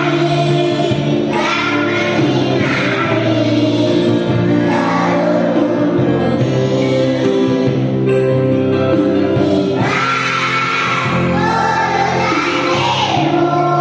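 A group of voices singing a song together in Indonesian over backing music with sustained notes.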